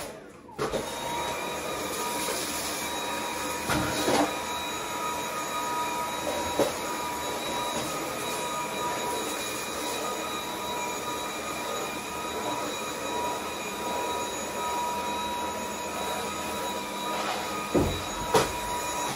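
Cordless stick vacuum cleaner switched on about half a second in and running steadily with a high motor whine, with a few knocks along the way, then cutting off at the end.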